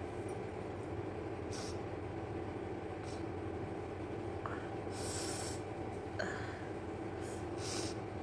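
A person sniffing and snorting through the nose about five times, one longer snort about five seconds in, while tickling the nostrils with a blade of long grass to bring on a sneeze. A steady hum underneath.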